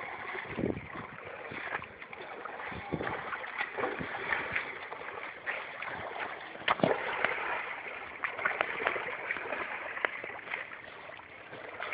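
Small waves lapping on a pebbly lakeshore, an uneven wash of water broken by scattered short clicks and rustles.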